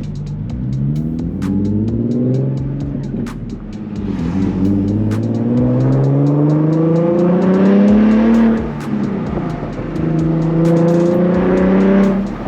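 Nissan 370Z's V6 through an aftermarket Tomei exhaust, accelerating hard: the engine note climbs, falls back about two seconds in, climbs again for about four seconds, drops near eight and a half seconds, then holds a steady note, like upshifts through the gears.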